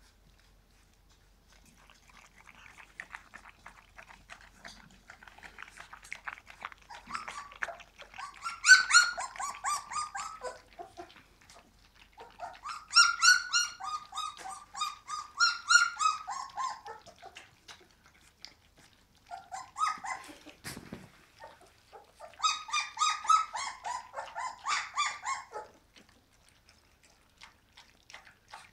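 Young puppies whining and squealing in four bouts of rapid, high-pitched cries that slide down in pitch, with a single knock about two-thirds of the way through.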